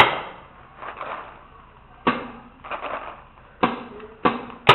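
Paintball fire: five sharp pops at irregular intervals, the loudest right at the start, with more following quickly near the end.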